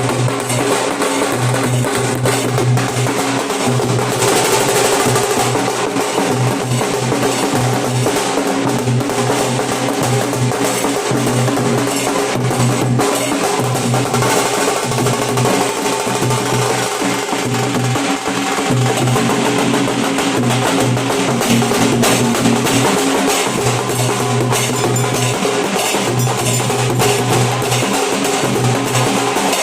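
Nashik dhol troupe playing: many dhol drums beaten together in a loud, continuous rhythm with no break.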